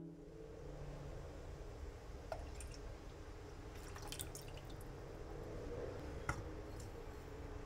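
Liquid pouring in a thin stream from a glass jug into a saucepan of cream and dripping, with three light clicks of glass.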